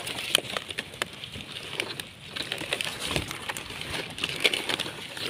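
Stiff pineapple-plant leaves rustling and scraping as a hand pushes in and grips the fruit's stalk, with scattered sharp clicks and crackles throughout.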